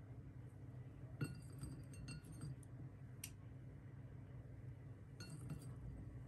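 Light clinks of kitchenware with a short ring, in a cluster about a second in and again a little after five seconds, with a single tick in between, over a faint steady low hum, while blueberries are picked up and placed on cupcake batter in a metal muffin tin.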